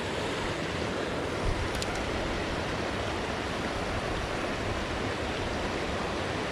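Steady rushing of river water pouring over small falls into a pool.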